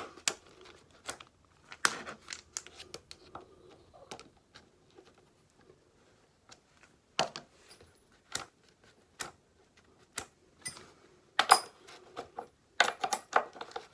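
Scattered sharp metallic clicks and clinks from working on a Stihl chainsaw's bar and chain with a hand tool during chain tension adjustment. They come closer together and louder near the end.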